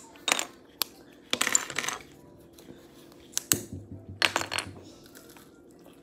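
Wooden clothespin pieces clicking and clacking together in the hands: several sharp clicks and a few short clattering bursts.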